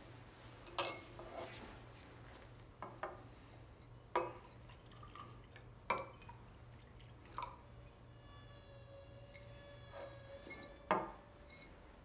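Slow, irregular single drips of liquid, each a short sharp plink, about eight in all with the loudest near the end, over a faint steady low hum. From about 8 to 11 s a thin held tone sounds.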